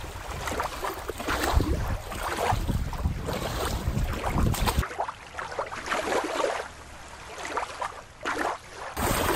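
Wind buffeting the microphone over water lapping at a shoreline, with a low rumble. About five seconds in it cuts abruptly to a quieter, duller ambience, and the wind returns near the end.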